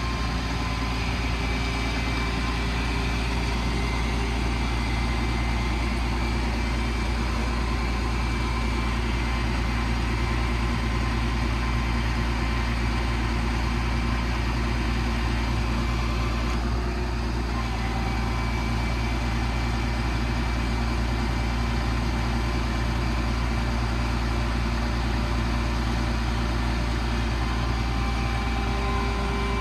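The 2007 Ford F-750's 5.9 Cummins inline-six turbo-diesel running steadily at a constant engine speed, a low, even diesel sound.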